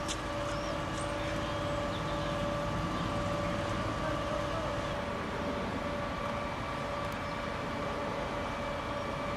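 Steady engine drone with an unchanging hum over a low rumble, and a few short high chirps in the first second.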